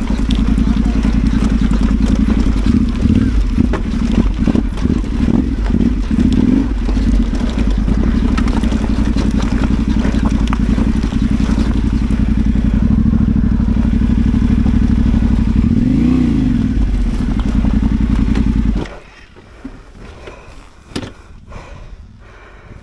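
Adventure motorcycle's parallel-twin engine running steadily under the rider, with one brief rev that rises and falls, then stopping abruptly about three-quarters of the way through. A few knocks and clatter follow.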